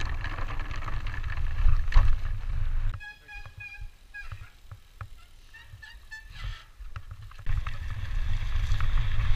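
Wind rumble on a helmet camera's microphone while a mountain bike is ridden fast. It drops away for about four seconds in the middle, where a few short high-pitched tones sound, then comes back loud near the end.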